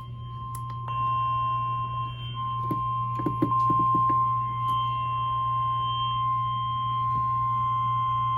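NOAA Weather Radio warning alarm tone: one long, unbroken steady tone from a weather radio's speaker over a low hum, growing louder about a second in. The tone signals that a warning broadcast, here a severe thunderstorm warning, is about to follow.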